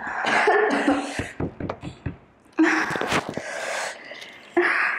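Heavy gasps and hissing breaths from a person suffering the burn of an extremely hot chili chip, with a quick run of small clicks between them.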